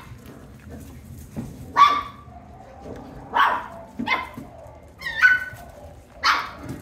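Australian Shepherd puppies giving short, high-pitched yips and barks, about five in all, spaced a second or so apart.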